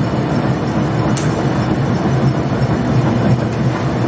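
Smoked salmon slicing machine running steadily with a dense mechanical rumble, and one sharp click about a second in.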